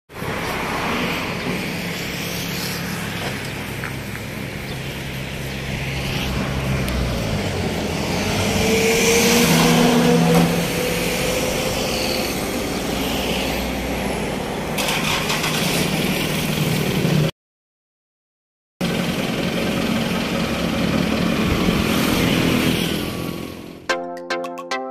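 Road traffic passing: vehicle engines and tyre noise, swelling louder as something passes about ten seconds in, with a short break in the sound later on. Light music with plucked notes starts just before the end.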